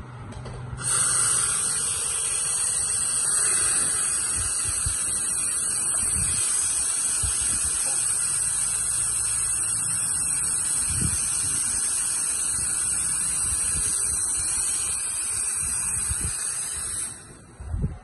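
Steam jetting from the steam wand of a Gaggia two-group espresso machine: a loud, steady hiss that starts as the steam knob is opened about a second in and cuts off when it is shut about a second before the end.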